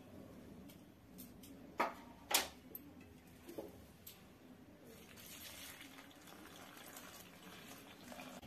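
Water pouring from a steel vessel into a steel bowl of gram flour, a steady pour from about five seconds in. Before it come two sharp knocks about two seconds in.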